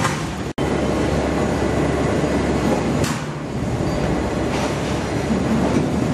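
Steady mechanical rumble of a paper mill's wood-handling line, with debarked pulpwood logs sliding down a wet steel chute. There is a sharper knock about three seconds in, and the sound drops out for an instant about half a second in.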